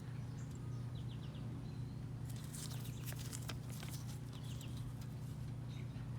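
Bursts of light clicks and rattles, the busiest a little past the middle, over a steady low hum, with a few short bird chirps.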